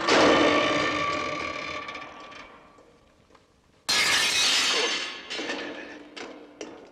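Two loud crashes, each ringing out and fading: the first dies away over about two and a half seconds, and the second comes about four seconds in. A few light clicks and knocks follow.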